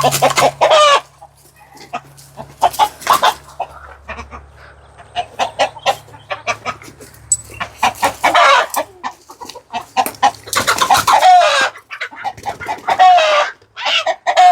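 Chickens clucking and squawking in loud, repeated bursts, several calls falling in pitch. The birds are agitated.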